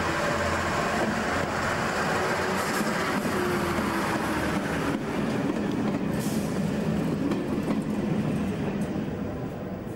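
First-generation diesel multiple unit passing close by, its underfloor diesel engines running and its wheels running on the rails. A drawn-out falling note is heard about three to five seconds in.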